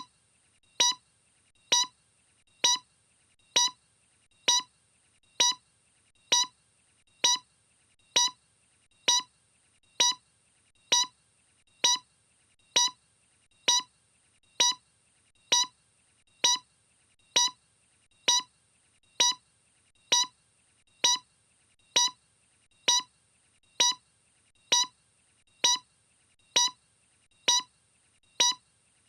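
A short electronic beep repeating at an even pace, a little more than once a second, over a faint steady high hiss.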